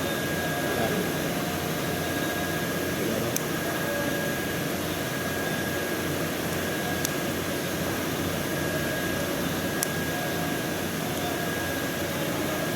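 Steady whooshing machine noise, like a fan or air conditioner running, with a faint steady whistle in it. Three small sharp ticks come a few seconds apart.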